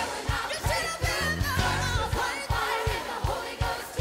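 Live church worship music: a fast, steady drum beat under voices singing.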